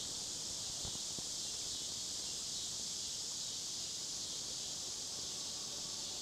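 Steady high-pitched chorus of insects such as crickets, unbroken and even in level.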